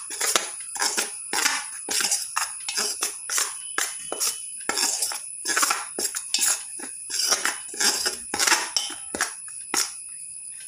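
Dry spice powders being mixed in a steel bowl: quick repeated scraping and clinking strokes against the metal, about two or three a second, that stop near the end.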